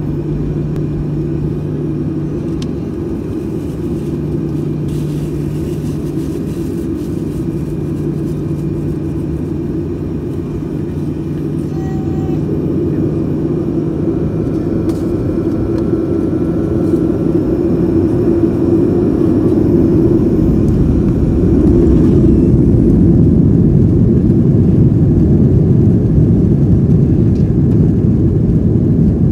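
Jet airliner cabin noise from a seat over the wing: a steady low rumble as the plane lines up on the runway. The rumble grows louder about two-thirds of the way through as the engines spool up and the takeoff roll begins.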